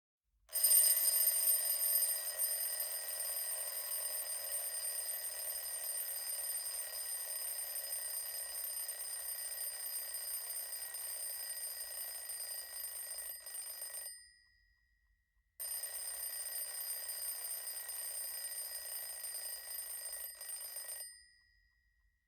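Mechanical alarm clock's bell ringing with a steady, rapid rattle. The first ring lasts about thirteen seconds, then comes a short pause and a second ring of about five seconds; each ends with a brief fading tone.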